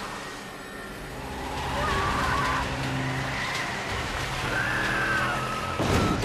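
A car's engine running with its tyres skidding and squealing on a rain-soaked road, over steady heavy rain, with a heavy thump near the end.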